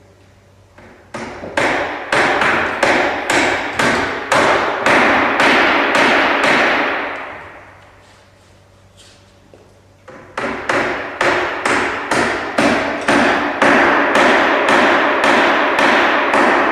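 Hammer blows on the timber of a wooden boat under construction: two runs of fast, even strikes, about three or four a second, each lasting about six seconds with a pause between, with a ringing that builds under each run and dies away when it stops.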